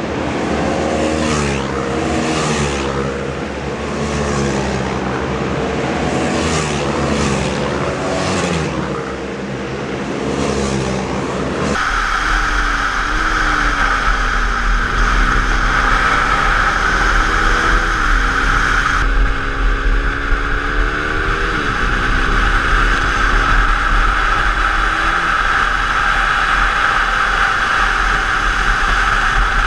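Several KTM single-cylinder motorcycles pass at speed down a race track's straight, their engine notes rising and falling as they go by. About 12 s in there is an onboard recording from a KTM Duke 390 at racing speed: heavy wind rush over the engine, and the revs climb steadily and drop back at each upshift, about every four seconds.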